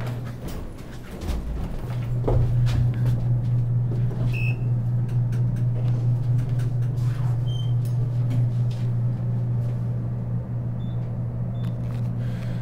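Hotel elevator running: a steady low hum that drops away briefly near the start and comes back about two seconds in, with scattered clicks and knocks from the cab.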